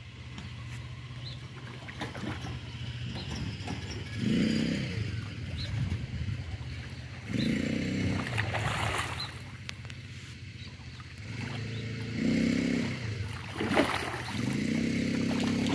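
A hooked fish splashing at the surface during the fight, loudest in one sharp splash near the end. A baitcasting reel is cranked in short bursts of whirring several times. A steady low hum runs underneath.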